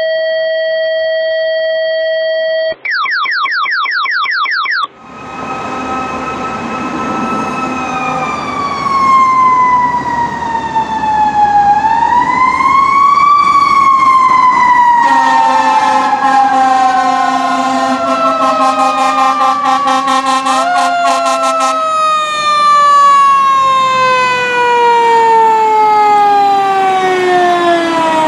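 A fire engine's siren wailing in long falling and rising glides. A horn sounds steadily for several seconds about halfway through, and a second falling siren tone overlaps it near the end. The first five seconds are flat electronic tones and a fast run of rising chirps.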